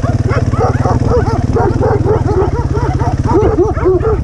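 Several dogs barking over and over, their barks overlapping, over the steady pulsing run of a KTM dirt bike's engine.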